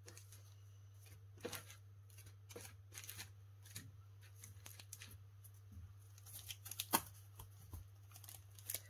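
Light rustling and scattered clicks from plastic-wrapped craft packaging and paper pads being handled, with one sharper click about seven seconds in. A steady low electrical hum runs underneath.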